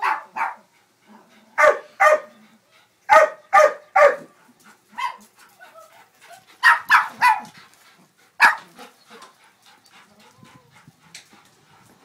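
A dog barking repeatedly in quick clusters of two to four barks, fainter and more scattered after about eight seconds, aimed at a bird perched out of its reach.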